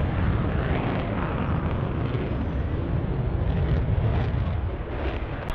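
F-35B Lightning II jet during a display flight: its single turbofan engine makes steady, deep jet noise.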